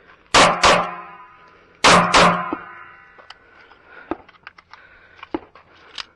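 Two quick pairs of 9mm pistol shots from a Sig Sauer P365, the second pair about a second and a half after the first, each pair followed by a metallic ring lasting about a second. A few faint clicks follow.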